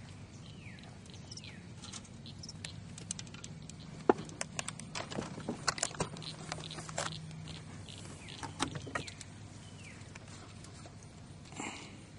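Knocks and rattles of the camera being handled, a cluster of them in the middle, over a steady low hum, with a few short falling bird chirps.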